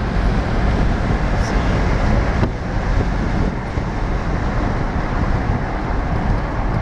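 Steady road and wind noise inside a vehicle driving at highway speed: a continuous low rumble with wind rushing past the open side vent window. A faint click sounds about two and a half seconds in.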